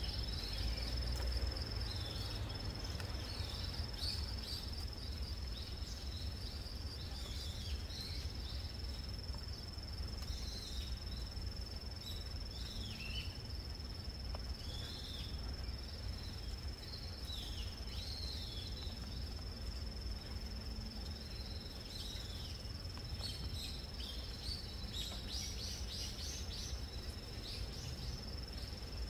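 A steady, high-pitched insect trill, with birds chirping on and off beneath it and a low background rumble. The chirping is busiest near the end.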